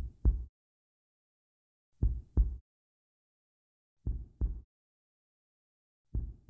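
Slow heartbeat sound effect: pairs of deep thumps, a beat and a quick second beat, repeating about every two seconds with silence between.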